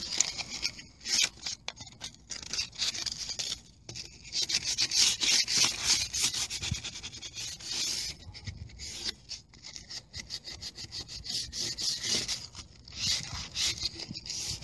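Sandpaper rubbed quickly back and forth over a bird-damaged coated surface, sanding it back for recoating. The strokes come in spells and are strongest in the middle and again near the end.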